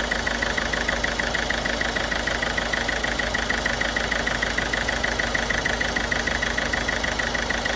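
Ford Figo's turbo-diesel engine idling steadily with a rapid, even ticking. The mechanic points to a light injector miss noise in this engine.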